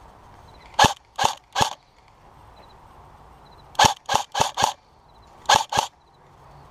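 Airsoft gun firing single shots in three quick groups: three, then four, then two short, sharp reports.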